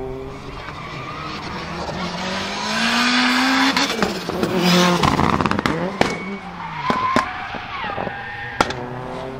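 A turbocharged 2.0-litre four-cylinder engine in a tuned Lancia Delta Integrale Evo 2, accelerating hard with its note rising for a few seconds. The car then slides with tyres squealing and skidding, and several sharp cracks come in the second half.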